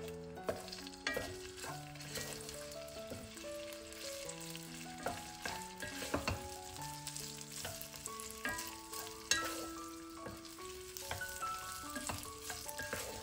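Chicken gizzards sizzling in a pot as a wooden spatula stirs them, with scrapes and knocks of the spatula against the pot. Background music with a slow melody plays throughout.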